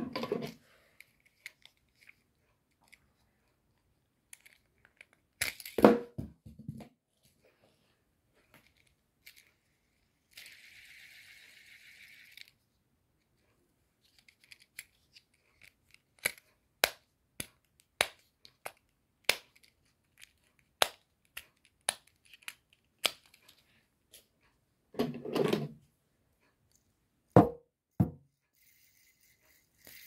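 Fidget toys being handled: a steady whir for about two seconds, then a run of sharp clicks, about two a second, as the buttons of a push-button fidget spinner are pressed. A few duller bumps of handling come in between, and near the end a spun fidget spinner whirs.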